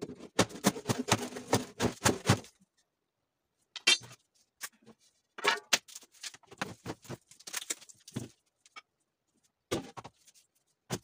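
A metal bar knocking and prying at a termite-eaten plywood cabinet, boards clattering as they are broken loose. A rapid run of knocks and clatter in the first two and a half seconds, then a pause and separate knocks and scrapes.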